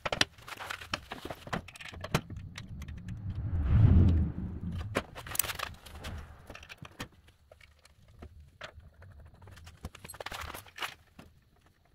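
Metal clinks, knocks and scrapes as a riding mower's transmission is worked up into its mount under the rear frame, with a louder low knocking about four seconds in. The clinks thin out later as it seats.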